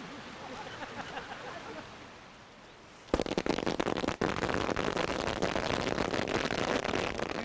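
Firecrackers going off in a fast, dense crackle of sharp bangs that starts suddenly about three seconds in and runs on.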